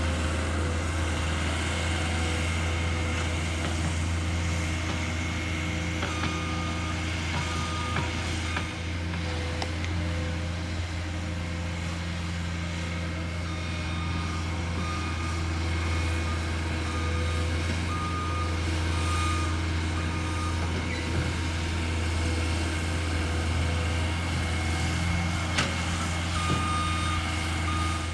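Heavy construction machinery with its engine running steadily at a low hum, and a reversing alarm beeping on and off from about six seconds in.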